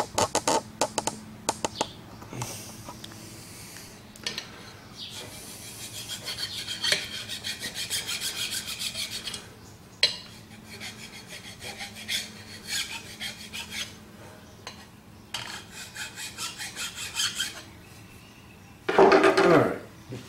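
Flat hand file rasping in quick strokes over the edge of an aluminium motor adapter plate, deburring it, in several short spells. A few sharp clicks at the start, and a loud scrape near the end.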